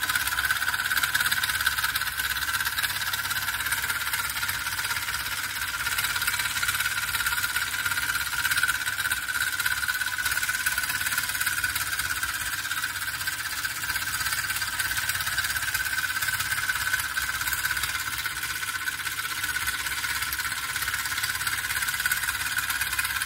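Homemade copper-pipe model steam engine with a Mamod engine running steadily on a gas burner: a continuous hiss and a fast, even beat, with a steady high tone throughout.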